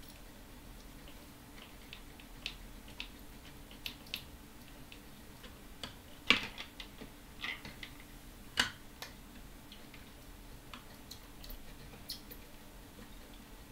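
Light, irregular clicks and taps of small tools and parts being handled at an electronics workbench, with two sharper knocks about six and eight and a half seconds in, over a faint steady low hum.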